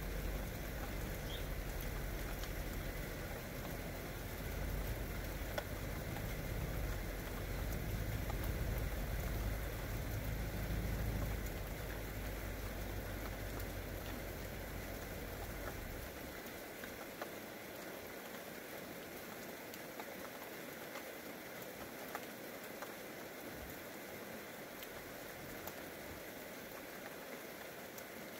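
Steady rain falling on the ground and vegetation, an even hiss with fine scattered drop ticks. A low rumble runs under it and dies away a little past the middle.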